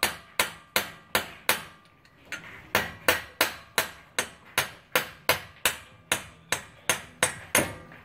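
Hammer blows on the CV axle of a 2000 Honda Odyssey, tapping it loose from the wheel hub: steady sharp strikes about three a second, with a short pause about two seconds in.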